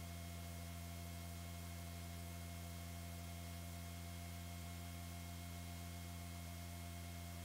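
A steady low hum with a few fainter higher tones over it and a faint hiss underneath.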